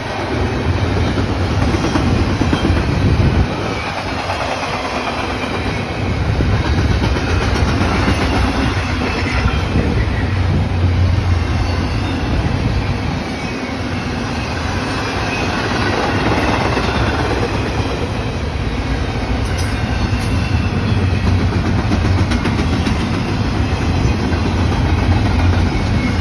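CSX intermodal freight train's cars rolling past, a steady noise of wheels on the rails with no horn sounding.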